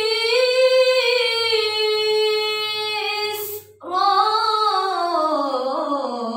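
Young woman reciting the Quran in melodic tilawah style: she holds one long ornamented note for about three and a half seconds, takes a quick breath, then begins a new phrase that glides down in pitch.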